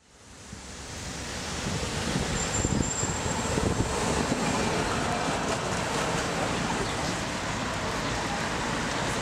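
City street noise with a tram running past, fading in from silence over the first couple of seconds and then holding steady.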